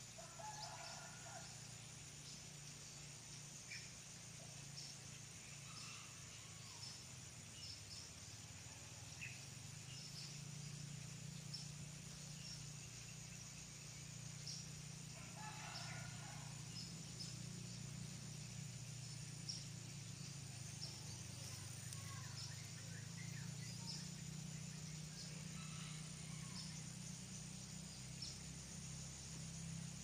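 Faint outdoor ambience: a low steady hum under scattered short high ticks, with a brief distant bird call near the start and another about halfway through.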